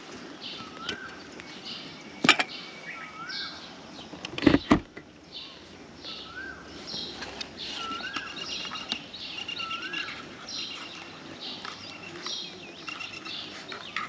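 Birds calling outdoors, one repeating a short rising whistle about once a second among higher chirps. Handling knocks as a folded drone is taken from its bag and its arms are opened: a sharp click a couple of seconds in and a louder thump about four and a half seconds in.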